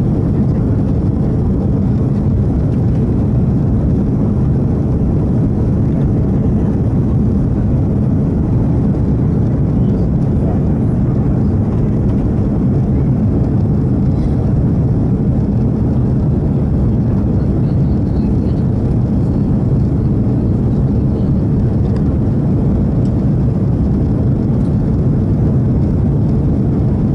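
Cabin noise inside an Airbus A340-600 airliner during its climb after takeoff: a steady, deep rumble of its four Rolls-Royce Trent engines and rushing air, unchanging throughout.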